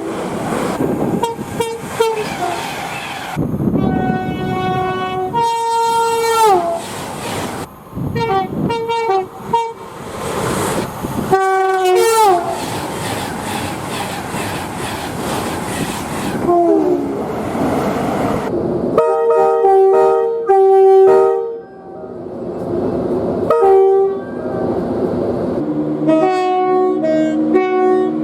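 A string of loud train horn soundings from different trains, cut one straight after another. Most are two-note horns sounded high then low, several sagging in pitch as they end, over the noise of trains running on the rails.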